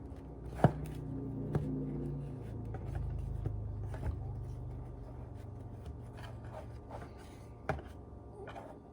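Kitchen handling sounds while chicken franks are seasoned with paprika: a few sharp clicks and light rubbing and ticking over a low steady hum.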